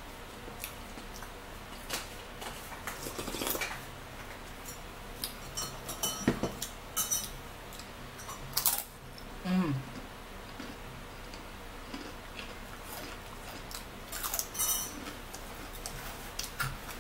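Scattered light clicks and clatter of dishes and cutlery at a table, with the crunch of a thin crisp snack being bitten a little past the middle and a brief falling hum just after it.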